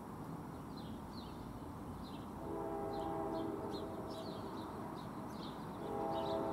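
A distant train's multi-chime air horn, a Nathan K5LA, sounds two long blasts: one begins about two and a half seconds in and lasts about two seconds, and a second starts near the end. Birds chirp throughout.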